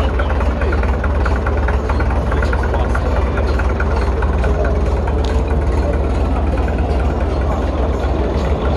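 Vintage crawler tractor's engine running steadily, driving a long flat belt to a threshing machine, with a light rhythmic ticking over the engine note.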